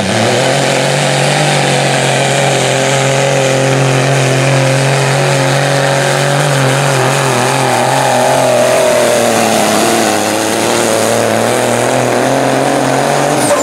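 Semi truck's diesel engine held at full throttle under heavy load as it pulls the weight sled: a loud, steady drone whose pitch sags slightly as the pull goes on.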